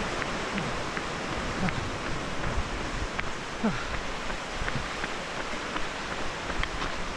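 Wind buffeting the microphone: a steady rushing hiss.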